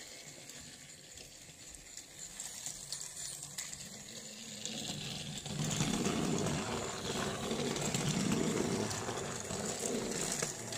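Battery-powered Trackmaster toy train motor whirring and rattling along plastic track. Faint at first, louder from about halfway through.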